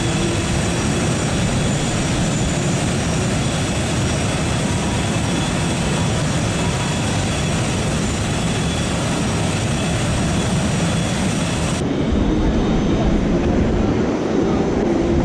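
Steady aircraft-engine noise on an airfield apron, an even rushing sound with a faint high whine in it. It changes at a cut about twelve seconds in, after which a faint rising whine comes in near the end.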